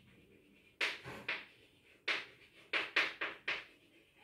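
Chalk writing on a blackboard: a quick run of short, sharp chalk taps and scrapes, about seven strokes, starting about a second in.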